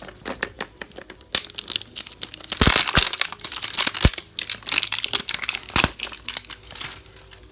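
Toy-set packaging being opened by hand: irregular crinkling, rustling and tearing, busiest and loudest a little before the middle.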